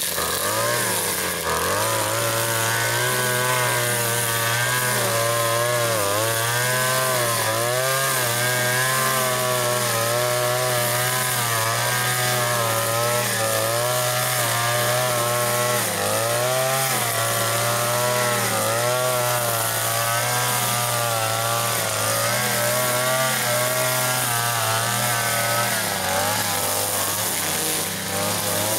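Fuxtec FX-PS152 two-stroke petrol chainsaw running and cutting wood, its engine pitch dipping under load and picking up again many times.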